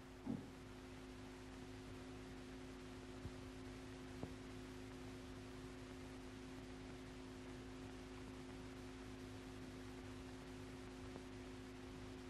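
Steady low hum of two held tones over faint hiss, the background noise of an old film soundtrack, with a couple of faint clicks about three and four seconds in.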